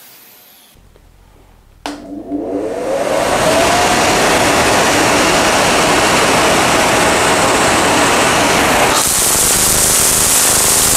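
Electric angle grinder spinning a string, with an electric air blower pushing the string forward, switched on about two seconds in: the whine rises as the motor spins up and settles into a loud steady rushing. About nine seconds in, a brighter, higher hiss joins.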